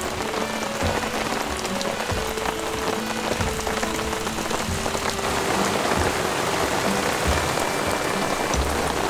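Steady rain falling on a camping tarp, a continuous hiss with scattered drop thuds, under soft background music with short held notes.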